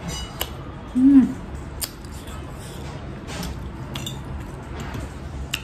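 Close-mic eating sounds: a person chewing a mouthful of noodles, with a few sharp clicks spread through. About a second in comes a short hummed "mm", the loudest sound.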